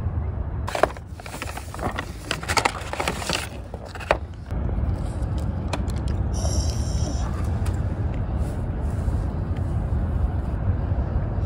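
Paper wrapping crinkling and rustling as a boxed katsu sandwich ekiben is unwrapped, a burst of about three seconds starting about a second in, followed by a brief higher rustle about six seconds in as the box is opened. A steady low rumble runs underneath.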